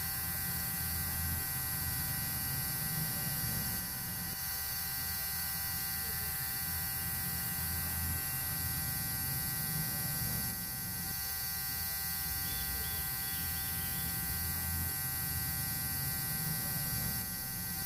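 Small electric motor of a homemade toy excavator buzzing steadily, dipping slightly in level three times.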